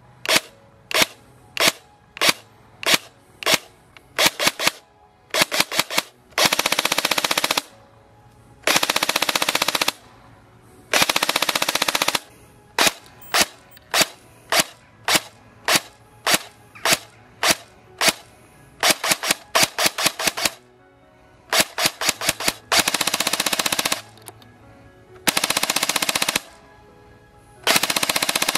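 Tokyo Marui P90+ airsoft electric gun firing: single shots about twice a second at first, then quicker strings of shots, and several full-auto bursts of about a second each.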